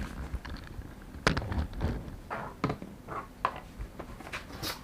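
Cardboard box and packaging being handled and unpacked: irregular knocks and thunks, the loudest about a second in, mixed with brief rustling of the contents being pulled out.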